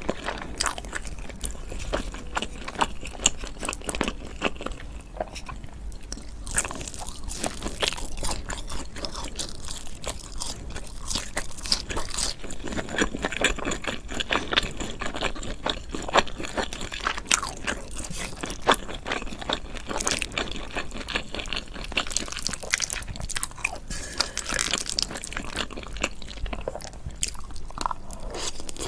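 Close-miked eating sounds: a mouth chewing and biting food, with dense, irregular crunchy and wet clicks.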